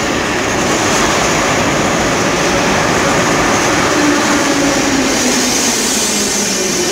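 Metro train pulling into an underground station: a loud, steady rumble of the cars on the rails, with a motor whine that slides slowly down in pitch as the train slows.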